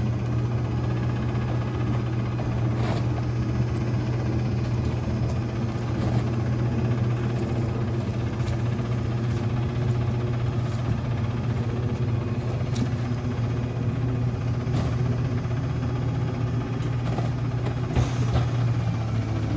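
Rear-loader garbage truck's diesel engine idling steadily with a low hum, with a few scattered knocks as cardboard boxes and bags of trash are thrown into the hopper.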